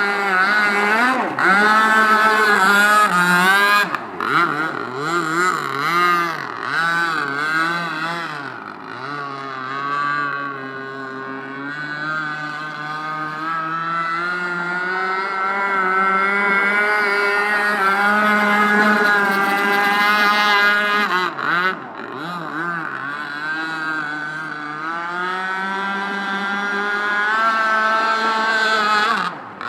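Gas-powered RC boat's two-stroke engine running hard on the water, its high buzzing note rising and falling as the throttle is worked. The revs sag for a few seconds about nine seconds in, then climb again.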